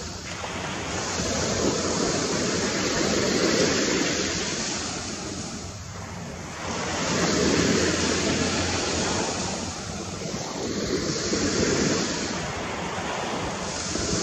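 Surf washing onto a sandy beach, a steady rush that swells and eases every few seconds, with some wind on the microphone.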